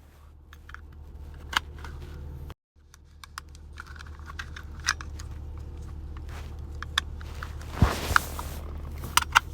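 Small sharp clicks and light handling noise of a DeWalt USB-C cable plug being inserted into and pulled from a port, either way up, over a low steady hum. A brief brushing or rubbing sound comes shortly before the end.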